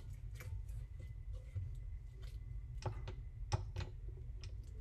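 Stand mixer's flat beater creaming butter and cream cheese into dough: a faint low motor hum with scattered light clicks and taps.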